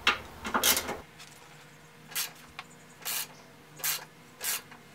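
Hand ratchet with a socket extension working a headlight-bracket bolt loose from the radiator core support, its pawl clicking in a short burst on each back-swing: about six strokes at an uneven pace.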